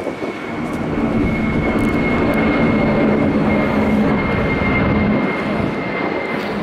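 Jet aircraft engines: a loud, steady roar with a high whine held over it.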